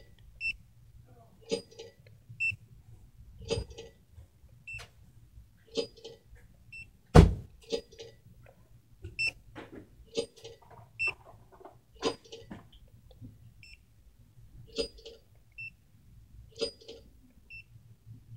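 Barcode scanner beeping again and again as vials are scanned one after another, each scan answered by the verification software's audible match sound, with handling clicks in between. One louder thump about seven seconds in.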